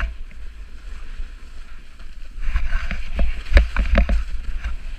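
Wind buffeting the microphone, then from about halfway a snowboard scraping over snow, a steady hiss broken by several sharp knocks.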